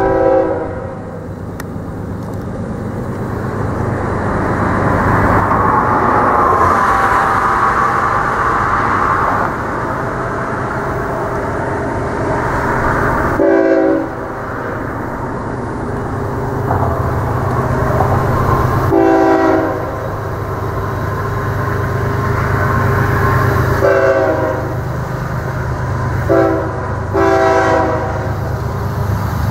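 Horn of an approaching train, still out of sight, sounding about five separate blasts for a grade crossing over a steady low rumble. The blasts come roughly a quarter of the way through and then several times towards the end, the last two close together.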